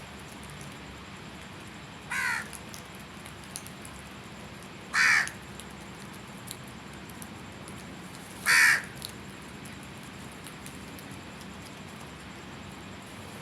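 A crow cawing three times, single harsh caws a few seconds apart, the second and third louder than the first.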